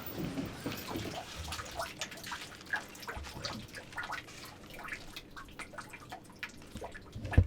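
Pig shed sounds: an irregular scatter of small clicks, taps and knocks from pigs moving about the pen, with a single louder knock near the end.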